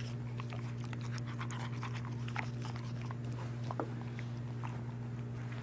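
A dog's mouth clicking and smacking in small irregular ticks while its teeth are brushed with a gritty baking-soda paste. A steady low hum runs underneath.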